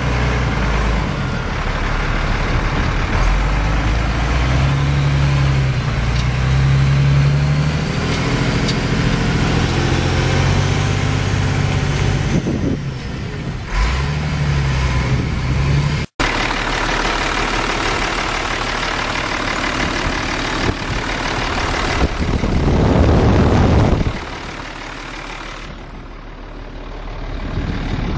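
Ford 7.8L six-cylinder diesel engine of a 1990 Ford F800 truck running, its engine speed and loudness shifting. It swells to its loudest about two-thirds of the way through, then drops off sharply to quieter running.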